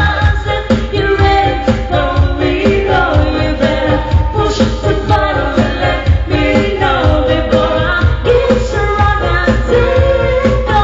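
Pop song with a steady dance beat and singing.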